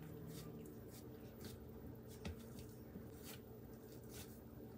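Faint squishing and rubbing of hands folding blueberries into soft biscuit dough, with a small knock about two seconds in.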